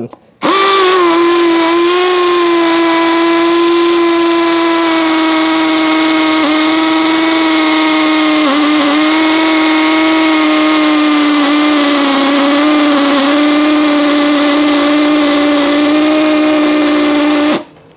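Yasuka YID318 cordless brushless impact drill boring a 10 mm hole into a concrete block with its hammer action: a loud, steady pitched drone that starts about half a second in, dips slightly now and then under load, and stops suddenly near the end.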